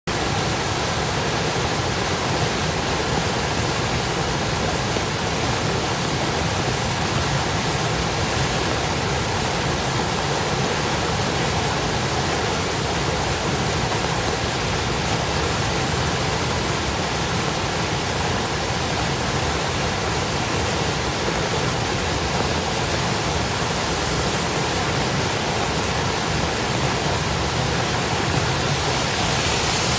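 Floodwater rushing steadily through a lake inlet.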